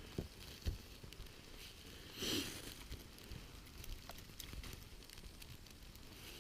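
Small campfire crackling, with scattered sharp pops and clicks. About two seconds in there is a brief hiss lasting about half a second.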